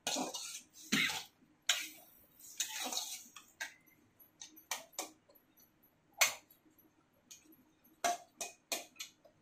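A metal spatula scraping and knocking against a wok as cubed potatoes are stirred. Sharp metal-on-metal clinks come irregularly throughout, with a few longer scrapes in the first three seconds.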